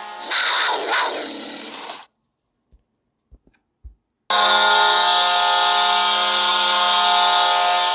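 Hockey goal horn recordings played from a goal horn app. A horn blast fades out under a swell of noise over the first two seconds, followed by a couple of seconds of silence with a few faint clicks. A new, loud, steady horn then starts a little past four seconds in and holds.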